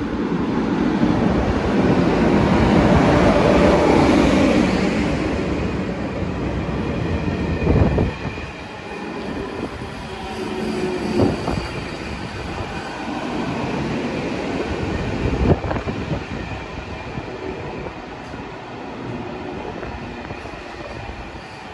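SJ X2000 high-speed electric train running in along the platform and slowing: a loud rush of wheels on rail that peaks early and then fades. A few single sharp knocks follow as the wheels cross rail joints, and a faint high steady whine sets in about halfway.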